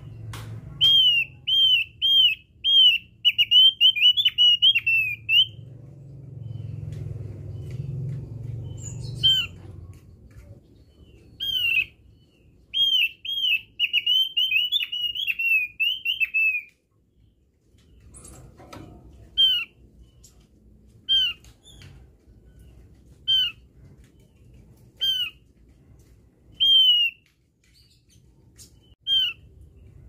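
Javan grey-throated white-eye (opior jawa) calling with short, clear, arching whistled notes. Twice it gives a quick run of about two notes a second lasting several seconds. Later it gives single notes about two seconds apart.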